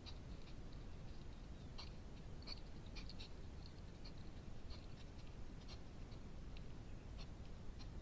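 A hedgehog eating from a food dish: irregular small chewing clicks, a few a second, over a steady low hiss.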